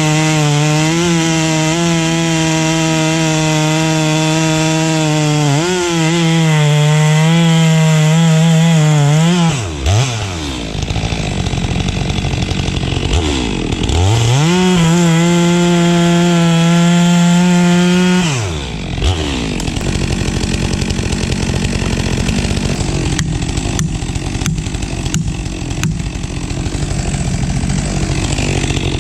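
STIHL MS 462 two-stroke chainsaw held at full revs, cutting through a maple log. About ten seconds in it drops to idle, revs up again and cuts for about four seconds, then falls back to a low idle, with a few light clicks near the end.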